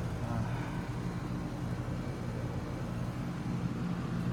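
2-ton Lennox heat pump outdoor unit running in cooling mode: a steady compressor hum under the whoosh of the condenser fan. The unit is running with its low-side refrigerant line frozen, which the owner takes as a sign that the unit is sick.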